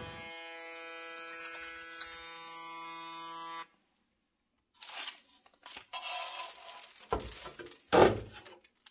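Desoldering station's vacuum pump buzzing steadily for about three and a half seconds, then cutting off abruptly. Scattered clicks and handling noises follow, with one louder knock about eight seconds in.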